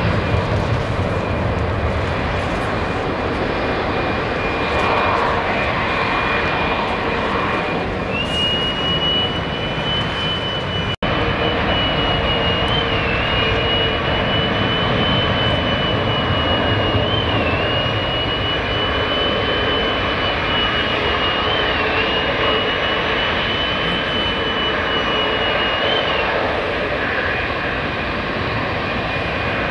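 Jet airliner engines running continuously with a thin, high whine over the noise. About eleven seconds in the sound drops out for an instant at a cut, after which the engine noise belongs to a Boeing 777 taxiing; the whine wavers slightly while it runs.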